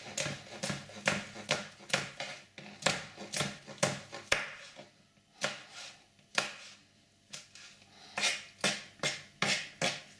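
Kitchen knife chopping a cold cooked sausage on a cutting board: a run of sharp knocks, a few a second and unevenly spaced, thinning out around the middle before picking up again.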